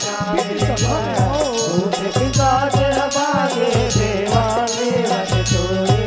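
Chhattisgarhi devotional jas music in an instrumental break between sung lines: a wavering melody over a fast, steady beat of drums and jingling cymbals.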